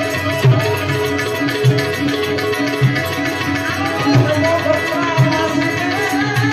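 Harmonium holding steady notes over a regular tabla beat, the accompaniment of a Gujarati santvani bhajan, with a gliding melody line coming in about four seconds in.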